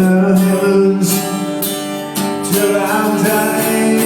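Live band playing a country-style instrumental intro, led by strummed acoustic guitar over held melody notes.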